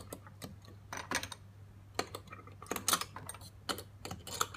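Light, irregular clicks and taps of hard plastic as the green plastic leaf-shaped picks of a Fruits Plant kitchen gadget are pushed into the holes of its plastic stack.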